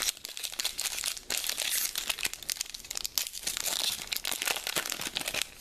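Foil wrapper of a Pokémon trading card booster pack crinkling and crackling as it is torn open and the cards are worked out, with brief pauses about a second in and again past three seconds.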